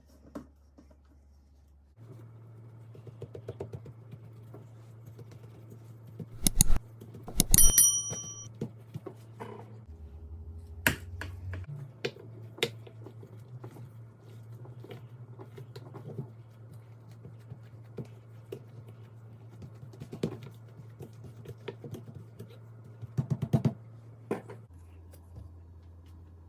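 Kitchen preparation sounds: scattered clicks and knocks of utensils and dishes over a steady low hum, with a louder clatter about six seconds in and a ringing metallic clink just after.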